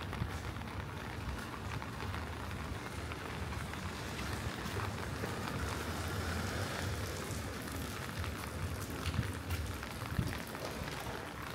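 Rain falling, a steady hiss dotted with many small drop ticks, over a low steady rumble.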